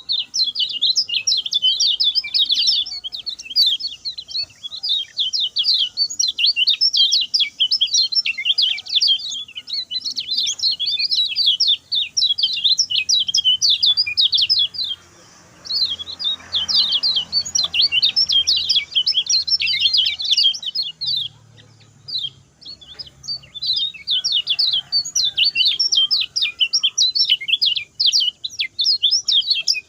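Kecial kuning, a white-eye, singing a fast, dense chattering song of rapid high chirps, the short quick phrasing bird-keepers call 'speed pendek'. It breaks off briefly about halfway through and again a few seconds later.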